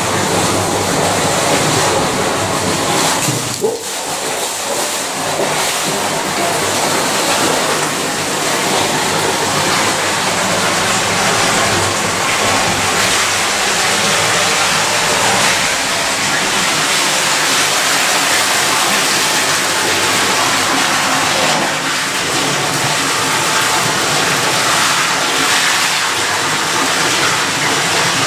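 Steady rush of water jetting from two pump hoses into a flood test tank and churning against a flood door, with a brief dip in level about four seconds in.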